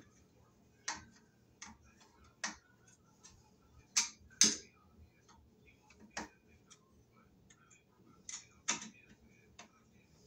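A screwdriver driving screws into a ceiling fan's motor hub, making irregular sharp clicks with short quiet gaps, the two loudest about four seconds in.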